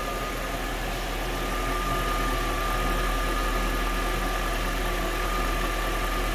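Mercedes-Benz M119 V8 idling steadily under an open hood, on freshly replaced engine mounts, with a steady high whine over the idle.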